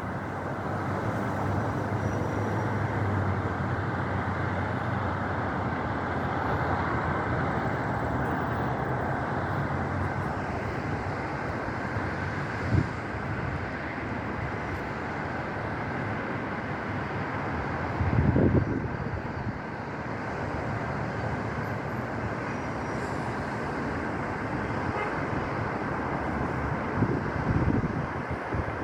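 Steady rush of traffic on a nearby highway mixed with strong wind. Gusts buffet the microphone with low rumbling surges, most strongly about two-thirds of the way through and again near the end.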